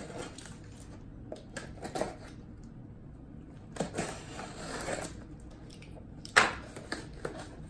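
Cardboard shipping box being handled and its packing tape picked at: scattered scratches and rustles, a longer rustle about four seconds in, and a sharp knock a little after six seconds.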